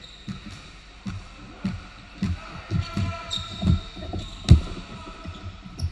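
Irregular thumps of running feet and a dribbled basketball on a hardwood gym floor, growing denser and louder, with the loudest thump about four and a half seconds in. Short high sneaker squeaks come now and then.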